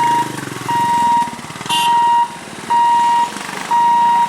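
Level crossing warning hooter beeping: one steady high tone, about half a second on and half a second off, repeating about once a second. An engine runs underneath, with a brief high chirp about two seconds in.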